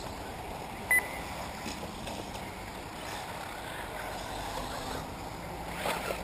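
Electric 1/8-scale off-road RC buggies running on a dirt track: a steady outdoor noise of their motors and tyres, with one short, loud electronic beep about a second in.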